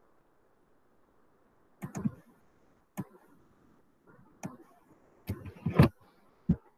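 Computer mouse clicking: about six sharp clicks at irregular spacing, the loudest near the end.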